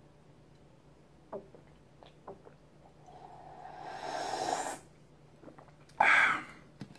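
A man drinking the leftover milk straight from a cereal bowl: a few soft clicks, then a slurp that grows louder for about two seconds as he tips the bowl up to drain it, and a short loud breath out about six seconds in as he lowers it.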